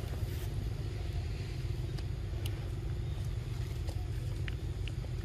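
Steady low engine rumble with a faint steady hum, with a few faint clicks.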